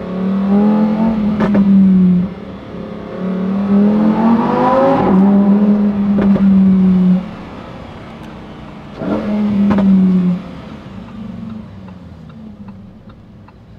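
Lamborghini Huracán STO's V10 engine revving hard in three loud stretches, holding and climbing in pitch, then dropping back to a lower running sound between them and near the end. A few sharp exhaust cracks break in during the revs.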